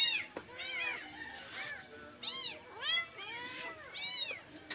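Kittens mewing over and over: many short, high-pitched calls, each rising and falling in pitch, several voices overlapping.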